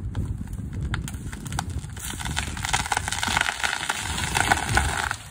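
A tree being felled: wood cracking and snapping, then a rushing sweep of branches and foliage that builds from about two seconds in and cuts off suddenly at the end.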